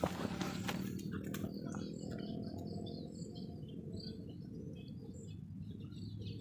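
Outdoor ambience of scattered short, high-pitched chirps from birds and insects over a steady low hum. In the first second or so there are rustling and knocking handling noises as the air rifle and its scope-mounted camera are moved.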